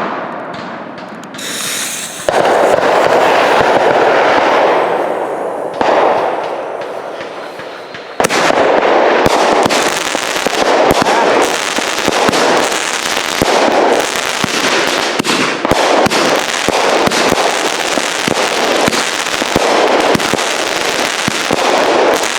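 A 200-gram consumer repeater firework cake firing, shot after shot. A rushing burst effect comes about two seconds in, then the firing turns much louder about eight seconds in, with rapid sharp reports and repeated bursts.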